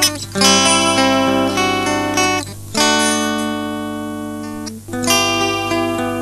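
Music: acoustic guitar strumming chords with no singing, a new chord struck about every two seconds and left to ring.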